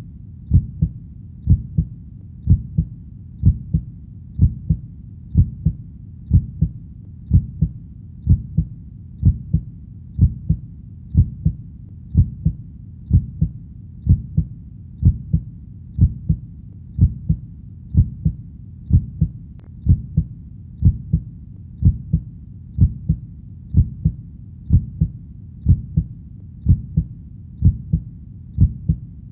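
Human heartbeat, a steady lub-dub of low, soft double thumps at about one beat a second.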